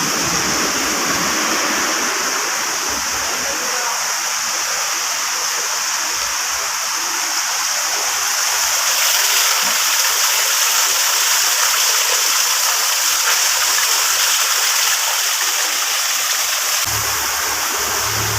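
Steady, even rush of pouring water from heavy rain.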